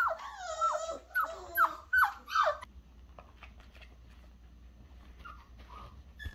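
Four-week-old flat-coated retriever puppy whining: a run of short, high, falling cries through the first two and a half seconds, then a few faint whimpers.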